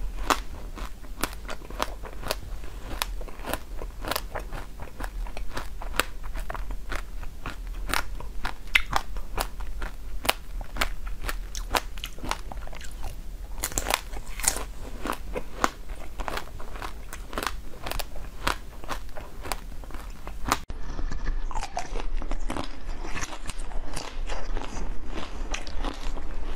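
Close-up crunching and chewing of frozen chocolate bars: many sharp cracks as the hard chocolate breaks between the teeth, with chewing in between. About twenty seconds in, the sound changes to a different recording of biting and chewing chocolate-coated bars.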